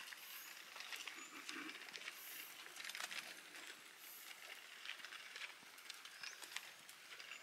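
Faint footsteps on a forest trail, irregular soft steps about every half second, with a few faint high bird chirps.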